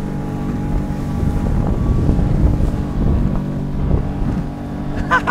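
Small motorboat running at a steady speed: a constant motor hum under water rushing past the hull and wind buffeting the microphone. A burst of rapid, pitched voice sounds cuts in right at the end.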